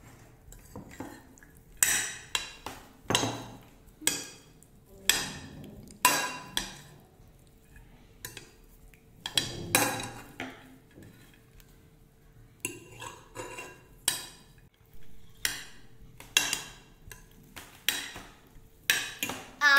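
Steel spoon stirring diced boiled potatoes in a glass bowl, repeatedly clinking and scraping against the glass in irregular sharp strokes.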